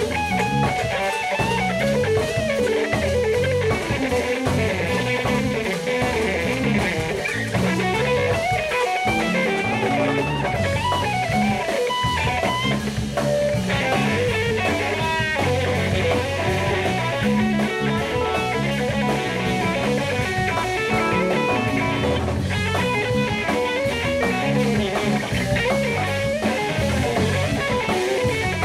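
Live jazz-funk band playing an instrumental passage: electric guitar and bass guitar over drum kit and keyboards.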